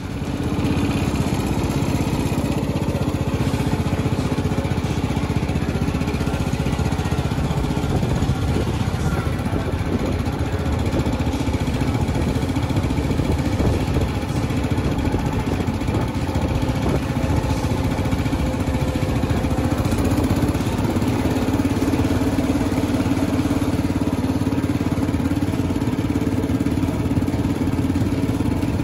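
1968 Cub Cadet 125 garden tractor's single-cylinder Kohler engine running steadily as the tractor is driven along.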